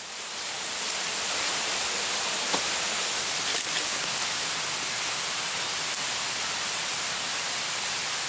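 Steady rushing of water, an even hiss that fades in over the first second and then holds level, with a few faint clicks in the middle.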